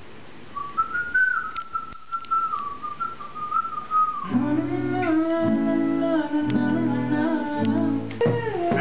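A person whistling a single wavering melody line, then from about four seconds in an acoustic guitar strumming chords comes in and carries on.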